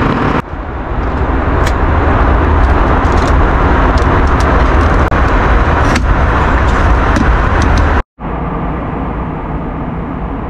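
Jet airliner cabin noise in flight: a loud, steady rush with a deep rumble, with a few light clicks of handling in the first part. The sound cuts off abruptly about eight seconds in and comes back a little quieter.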